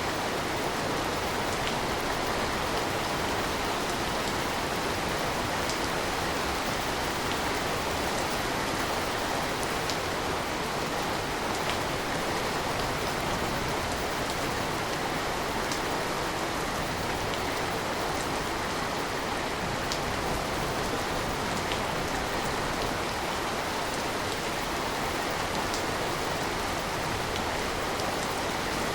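Steady rain falling, an even hiss with faint sharp drop ticks scattered through it.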